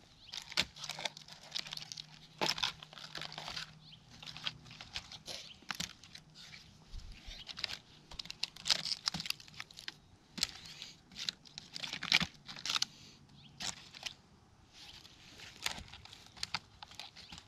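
Irregular rustling, crunching and crackling of dry material being handled, coming in uneven clusters with short pauses between them.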